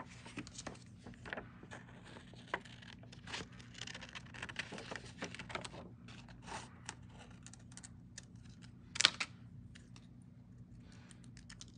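Small craft handling sounds: metal tweezers and a thin plastic decal sheet clicking, tapping and rustling in quick irregular ticks, with a scratchy stretch near the middle and a sharper click about nine seconds in, over a faint steady low hum.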